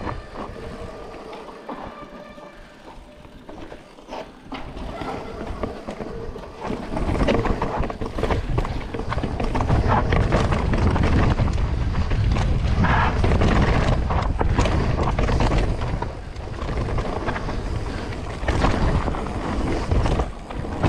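Mountain bike rolling fast down a dirt singletrack: tyres rumbling over the dirt and the bike rattling and clattering over bumps, with many short knocks. It is quieter at first and grows much louder from about seven seconds in as the speed builds.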